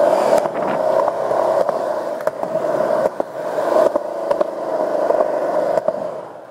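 Skateboard wheels rolling over concrete: a steady rumble with scattered sharp clicks, dying away near the end.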